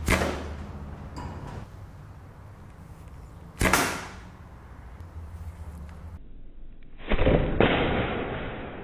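Wooden recurve bow shot three times, each a sharp snap of the string on release: one at the start, one about three and a half seconds in, and one about seven seconds in. The last is a longer, rougher noise with a second hit about half a second after the first.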